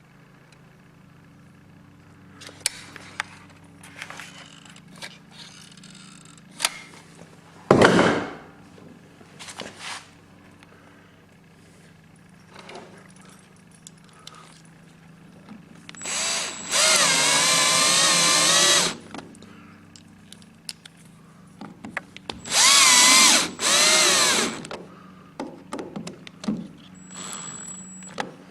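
Power drill run in two bursts of a few seconds each, the second broken into two short runs, the motor pitch wavering as the bit takes load, while drilling for a boat drain plug. Scattered knocks and clatter of handling come before, with one loud hit about eight seconds in.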